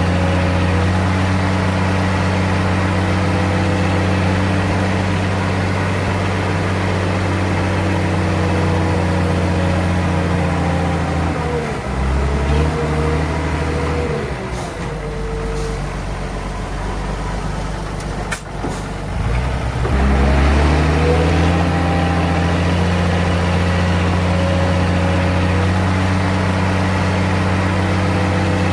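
Heavy diesel engine of a bulldozer running steadily under load. About twelve seconds in the revs drop and waver, with a sharp click near eighteen seconds, then about twenty seconds in they climb back to the steady level.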